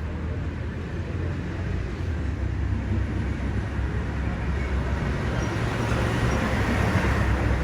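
Steady rumble of street traffic, swelling as a vehicle passes near the end.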